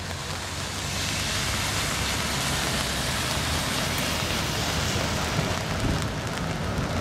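Tyres hissing on a rain-soaked road as a car passes, the hiss swelling and then easing, over a low rumble from an approaching tram.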